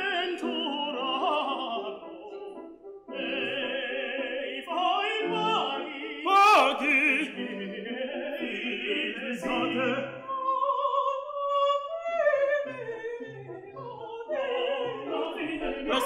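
Operatic singing with strong vibrato over instrumental accompaniment, with a brief lull about two seconds in and long held notes later on.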